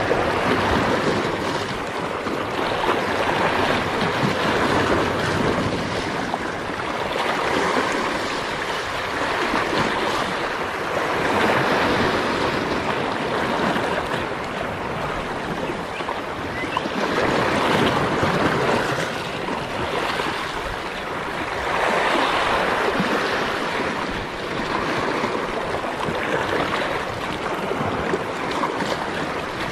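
Sea surf washing against shoreline rocks, a steady rush that swells and ebbs every four to five seconds as the waves come in.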